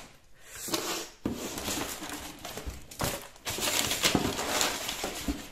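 Plastic-wrapped scrapbook paper packs rustling and crinkling as they are handled and moved, loudest a little past halfway.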